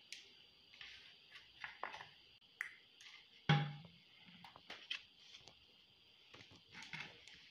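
Light handling noises of hands picking up a halved brinjal from a plate to oil it: scattered soft taps and clicks, with one louder knock about three and a half seconds in, over a steady faint high hiss.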